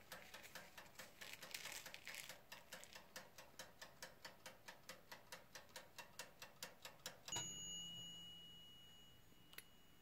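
Mechanical wind-up timer of a Hamilton Beach toaster oven ticking evenly, about three ticks a second, then its bell dings about seven seconds in and rings away over a couple of seconds as the timer runs out, followed by a single click.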